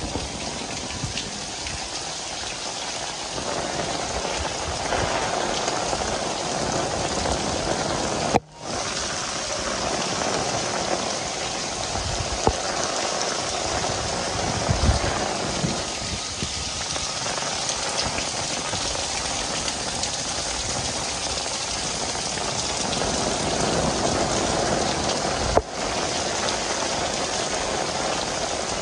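Heavy rain pouring steadily onto roofs and wet paved ground, a dense even hiss that breaks off for an instant twice.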